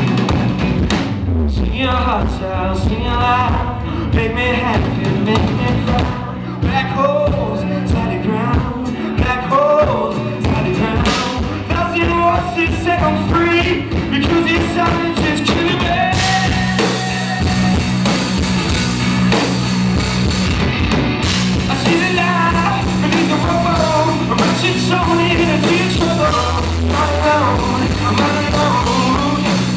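A rock band playing live, with a sung lead vocal over a drum kit and heavy guitar, recorded with heavy distortion. The sound grows fuller from about halfway through.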